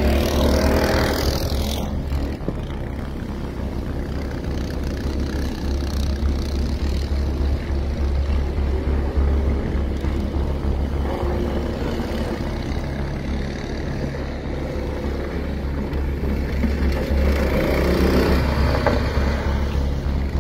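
Racing kart engines going round a track. One kart passes in the first two seconds and another a few seconds before the end, each engine note swelling and falling away. Between them comes the drone of karts elsewhere on the circuit, over a steady low rumble.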